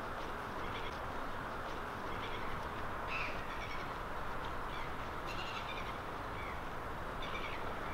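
Outdoor ambience: a steady background hiss with birds chirping in short calls every second or so.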